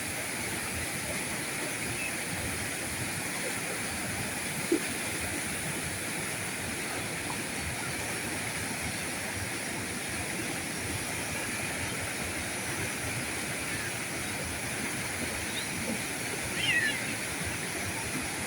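River current flowing steadily, an even rushing of water. A single sharp click comes about a quarter of the way in, and a short burst of quick chirps sounds near the end.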